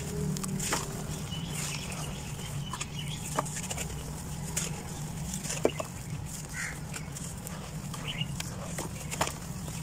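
Dry red dirt being crushed by hand and crumbling into a tub of water: scattered crunches and small chunks dropping. A steady low hum runs underneath, and a few short bird-like calls come at intervals.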